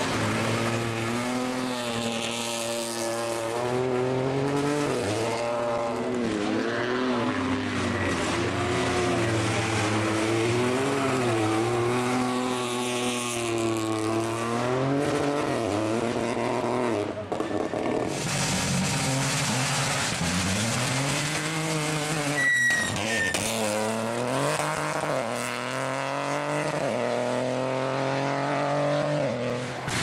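Rally car engine revving hard, its pitch climbing and falling again and again as the car accelerates, shifts gear and lifts off. The sound breaks off briefly about halfway through, then picks up again.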